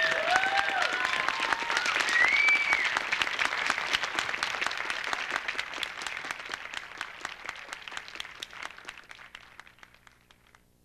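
Crowd applauding, with a few voices whooping and cheering in the first few seconds. The clapping thins out and dies away near the end.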